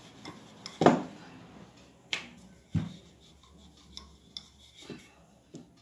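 Wooden rolling pin rolling out a small round of dough on a hard tabletop, a soft rubbing with a few short knocks of the pin against the table, the loudest about a second in.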